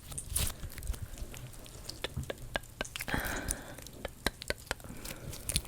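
Sticky gummy-bear squishy toys being pulled apart: a quick run of small tacky clicks and crackles as the surfaces peel from each other.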